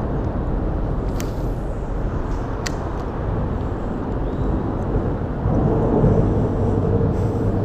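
Highway traffic rumbling on the bridge deck overhead, a steady low drone that swells louder about five and a half seconds in. Two sharp clicks come in the first few seconds.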